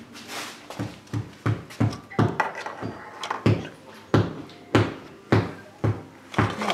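A run of about a dozen dull thumps, close together at first and then about two a second.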